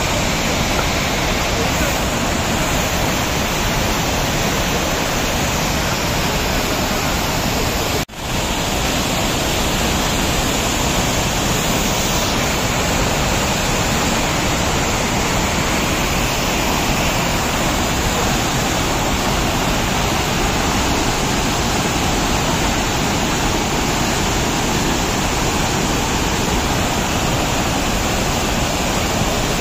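Loud, steady rush of whitewater rapids and cascades on the Kaveri River at Hogenakkal, tumbling over rocks. The sound drops out for a moment about eight seconds in.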